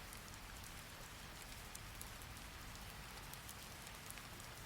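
Steady, faint rain falling, an even hiss with scattered drops ticking.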